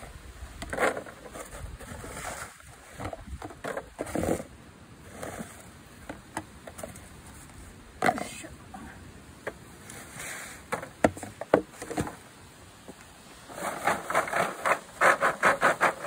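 Plastic dustpan scraping across a tarp and cycad seeds clattering as they are scooped into the dustpan and tipped into a plastic crate, in irregular short scrapes and knocks. Near the end a quick run of rattling knocks as the loaded crate is lifted and shaken.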